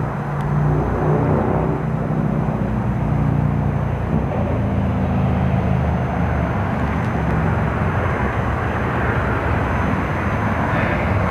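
Necro spirit-box app starting up: a loud, steady hiss of static with garbled low tones that jump in pitch every fraction of a second.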